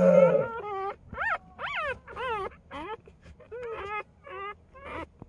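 Newborn puppies whimpering and squealing: a string of short, high-pitched cries, each rising and falling in pitch, about two a second. A louder, lower moan comes at the very start.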